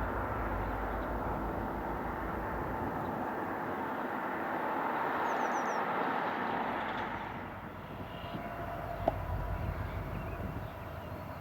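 Diesel helper locomotives running, their rumble swelling to a peak about halfway through and then fading as they move past. A single sharp click sounds near the end.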